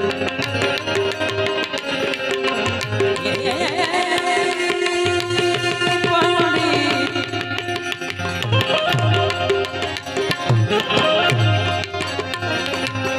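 Instrumental interlude of a Gujarati bhajan: tabla strokes throughout, with deep resonant bass strokes, under a harmonium melody.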